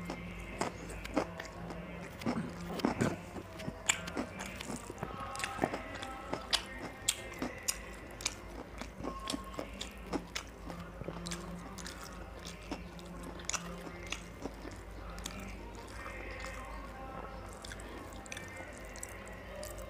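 Close-miked eating of rice and chicken curry by hand: chewing and lip smacks, with the wet squish of fingers mixing rice into gravy. Many short, sharp clicks and smacks come at irregular intervals.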